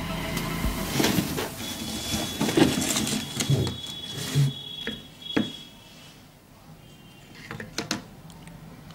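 Handling noise from an opened speaker cabinet being moved and its wiring worked by hand: a run of knocks and clatters that dies down to quiet about halfway through.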